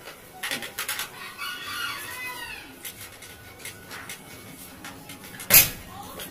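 A rooster crows once in the background, a single call of a little over a second that rises and then falls in pitch. A few light clicks come before it, and a single sharp knock near the end is the loudest sound.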